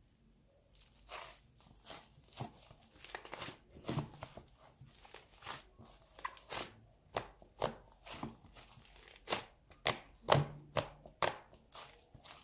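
Close handling noises: an irregular run of sharp clicks, taps and crinkles that starts about a second in and goes on with several strokes a second.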